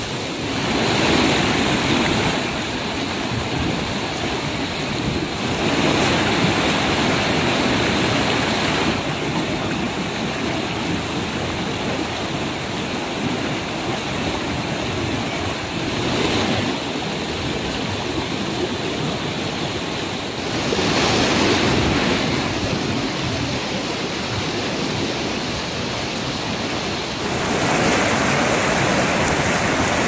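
Waterfall and rapids: white water crashing over rock cascades and boulders in a steady, loud rush of water noise. Its loudness and tone shift abruptly every few seconds.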